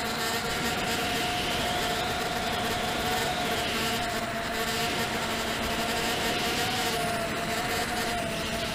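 Brushless motors and propellers of a ZMR racing quadcopter in flight, heard through its onboard camera: a steady buzzing whine that wavers slightly in pitch with the throttle, over a rush of wind noise.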